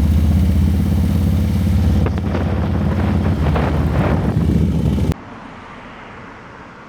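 Harley-Davidson FXR's V-twin engine running steadily. It cuts off abruptly about five seconds in, leaving only quiet background.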